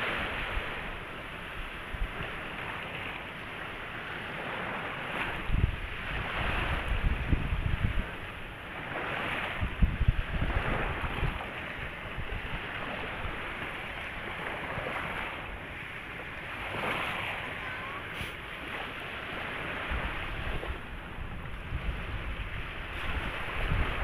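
Small waves washing on a shallow sandy shore, a steady surf hiss rising and falling in soft swells. Wind gusts buffet the microphone several times with a low rumble.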